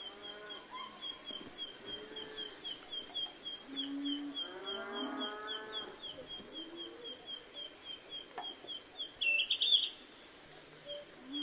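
Farm ambience: cattle mooing, with one longer moo in the middle, over a bird chirping rapidly and steadily at about four chirps a second. A louder burst of chirping comes near the end.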